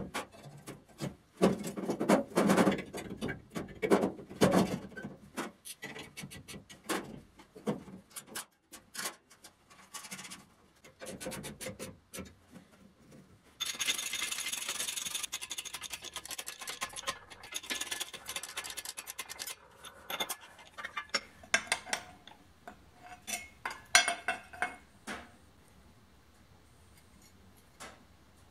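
Metal workshop sounds: irregular knocks and clinks of steel parts being handled, then about six seconds of steady scraping on metal, then more scattered clinks before it goes quiet near the end.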